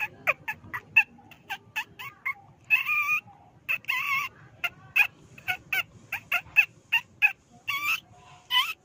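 Rats squeaking: a rapid, irregular series of short high squeaks, with a few longer wavering squeals mixed in, played as a lure call to draw rats out.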